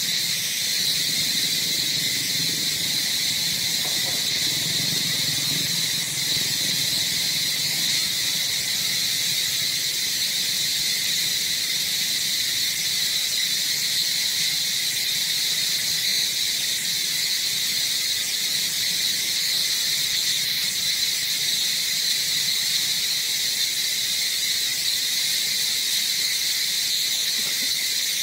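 Steady chorus of insects, a continuous high-pitched buzz that holds the same pitch and level throughout.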